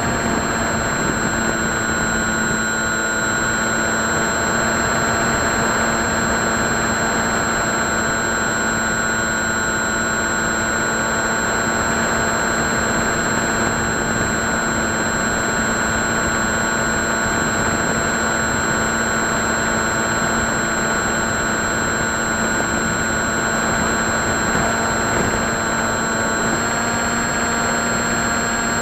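Motor and propeller of an FPV model plane running at steady cruise, heard through the onboard camera as a constant drone with a whine over rushing air. The pitch shifts slightly near the end.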